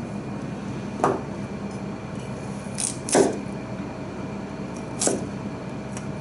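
Kitchen knife cutting through a red kyo carrot onto a plastic cutting board: four sharp knocks, two of them close together near the middle, over a low steady hum.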